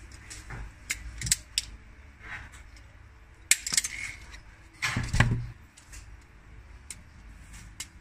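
Sharp metallic clicks and snaps of an HS-D1 self-adjusting wire stripper's spring-loaded jaws and blades closing and springing open as it strips insulation from a wire, with a louder clatter of the tool being handled about five seconds in.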